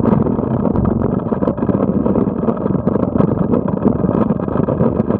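Yamaha GP1200 WaveRunner's two-stroke triple engine running steadily under way, heard from a camera mounted on the craft together with wind and water noise.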